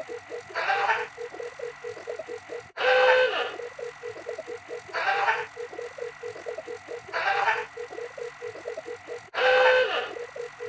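Fast mechanical ticking, about five ticks a second, with a brighter rattling burst about every two seconds. It cuts off and restarts abruptly twice.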